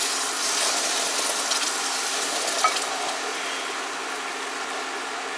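Beef consommé sizzling and bubbling as it is poured into a hot flour roux in a skillet and stirred with a silicone spatula, the start of a pan gravy. The sizzle eases a little after about three seconds, and there is one light knock about two and a half seconds in.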